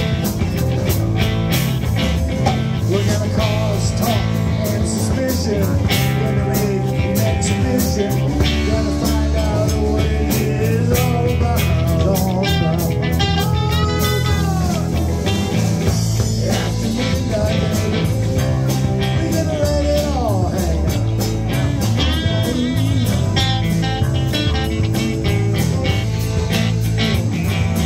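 Live rock band playing an instrumental stretch: lead guitar soloing with string bends over bass and a steady drum beat.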